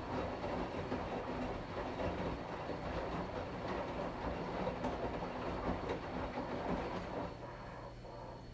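Washing machine running with a rumbling, rattling clatter that drops away about seven seconds in, leaving a quieter steady hum.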